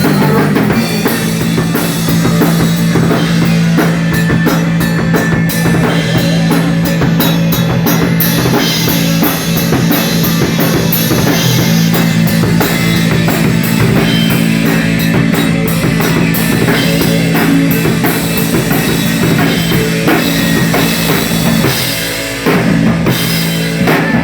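Rock and roll band playing an instrumental passage: drum kit and bass with guitar, no singing. It breaks off briefly near the end, then comes back in.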